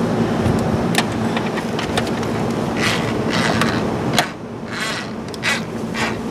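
A screwdriver turned by hand on a dashboard trim screw: scattered sharp clicks and short scraping rasps of the bit against the screw head, over a steady low hum.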